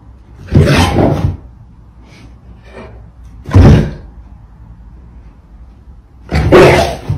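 Large dog barking: three loud, deep barks about three seconds apart while play-bowing at a cat.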